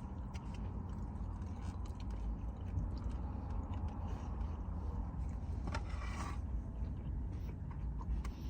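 Low, steady rumble inside a car, with faint small scrapes and clicks and a brief faint voice sound about six seconds in.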